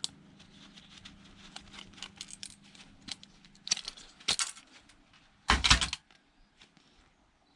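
Small metal parts and a hand tool clicking and clinking as an electronic device is taken apart, with a louder metallic clatter lasting about half a second about five and a half seconds in.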